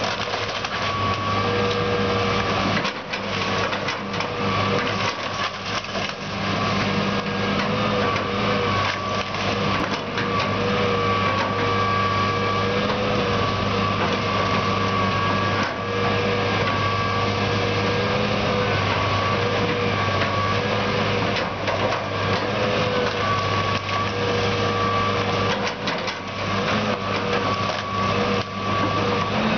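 John Deere 230C LC excavator's diesel engine running steadily under load, with a whine that wavers slightly in pitch as the arm works. Scattered cracks and crunches of wood and roofing being torn and crushed by the grapple, several of them around 3 to 4 s, 8 to 10 s and 26 to 27 s in.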